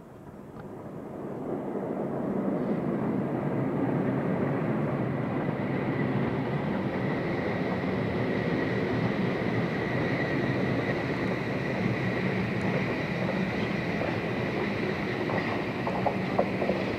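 Passenger train running along the track below, its rumble swelling over the first two seconds and then holding steady. From about seven seconds a thin, steady high tone rides above it, and a few short clanks come near the end.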